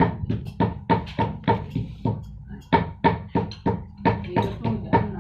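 Quick, sharp hammer taps, about three a second with a short pause midway, over background music.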